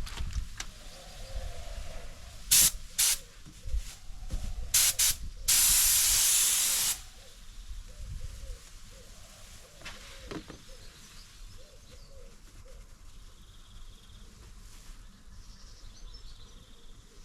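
Compressed-air spray gun hissing in several short trigger bursts, then one longer burst of about a second and a half, while clear coat goes onto a car door panel.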